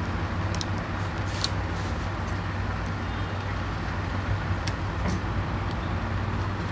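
Steady low hum and background noise, with a few faint, light clicks of small parts or tools being handled during a phone repair.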